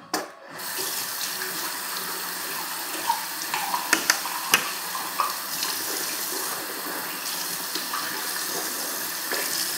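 Bathroom tap running steadily into a sink while teeth are brushed, with a few sharp clicks about three to four and a half seconds in.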